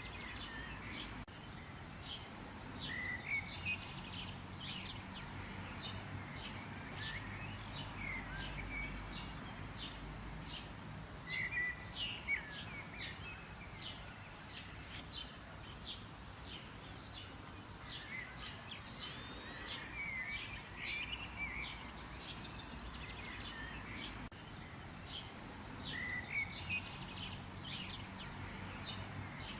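Several small birds chirping and trilling in rapid, repeated short notes, over a steady low background rumble.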